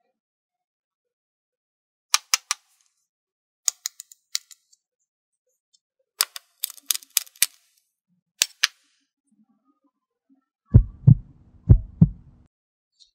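Sharp plastic clicks from a toy stethoscope being handled, then its electronic heartbeat sound near the end: two lub-dub beats, deep thumps over a low hum, as the chestpiece is pressed to a doll's chest.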